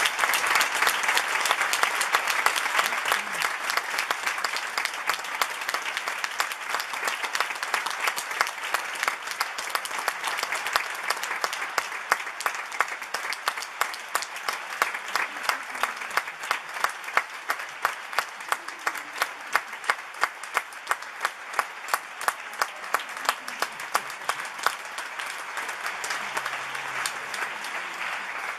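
Opera audience applauding at length. About halfway through, the clapping falls into a steady unison beat of roughly two claps a second.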